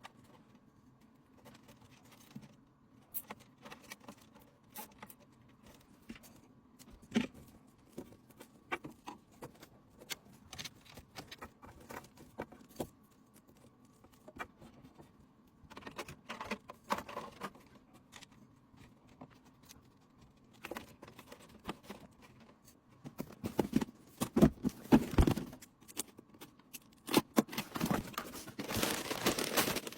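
Hands handling computer parts and packaging: scattered light clicks and taps, getting louder and busier in the second half, with rustling and crinkling near the end.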